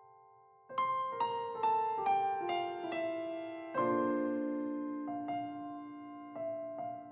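Background piano music: a short descending run of notes, then slow, gently ringing chords.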